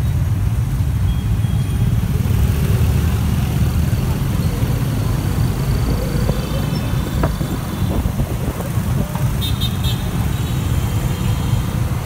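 Dense scooter and car traffic heard from the back of a motorbike: a steady low rumble of small motorbike engines and road noise as the traffic moves off.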